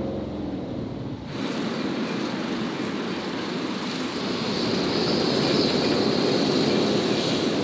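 Car cabin road and engine noise for about a second, then an abrupt change to strong wind blowing hard through a marina, growing louder about halfway through.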